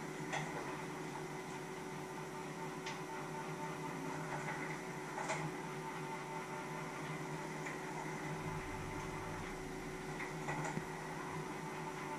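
Steady electrical hum, with a few faint short clicks scattered through it.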